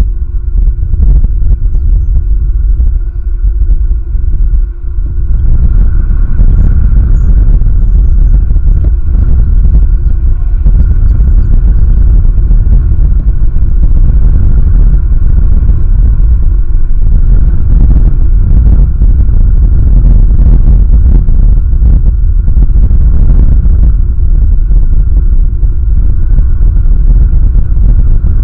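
Strong wind buffeting an outdoor nest-cam microphone: a loud, constant low rumble that picks up about five seconds in.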